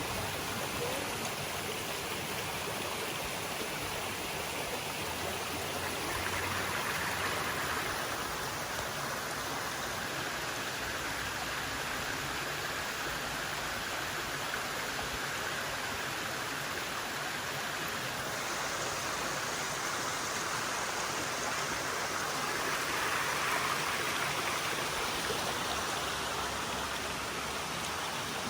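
Creek water cascading over rocks in a steady rush, swelling slightly a couple of times.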